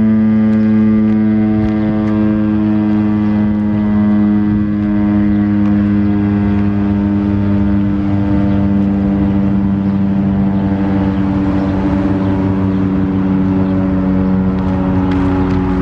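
Federal Signal STH-10A outdoor warning siren sounding a low growl: one loud, steady tone with many overtones, its pitch sinking very slowly as the rotor winds down.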